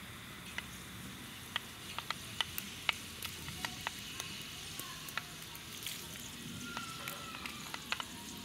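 Fenugreek seeds frying in hot oil in a clay pot: a steady sizzle with frequent small, sharp pops.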